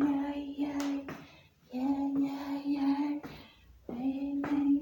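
A woman's voice singing or chanting three long held notes at nearly the same pitch, each over a second long with short breaks between. A sharp click sounds about a second in and another near the end.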